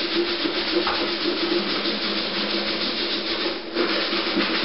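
Continuous hard scrubbing, rubbing back and forth against a surface inside a refrigerator.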